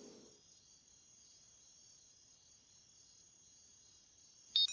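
Faint crickets chirping in a steady high trill, with a brief sharp high blip near the end.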